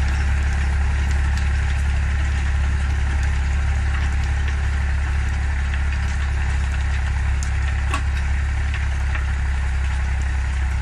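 Tractor diesel engine running steadily under load, driving a rear-mounted Shaktiman rotary tiller that churns through the soil. A sharp click stands out about eight seconds in.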